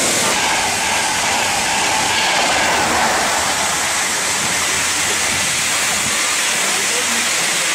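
InterCity 225 express train running through the station at speed: a steady loud rush with wheels clattering on the rails.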